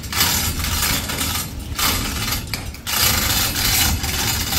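The hand chain of a chain-operated grain bin jack, pulled by hand to lower the bin, rattling through its pulley in spurts with short pauses, over a steady low rumble.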